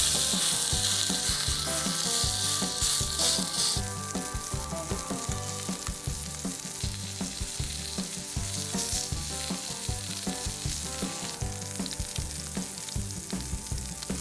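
A steak sizzling as it sears in a cast-iron skillet heated to about 500 degrees with a little oil. The sizzle is loudest for the first few seconds after the steak goes in, then settles to a steadier frying sizzle.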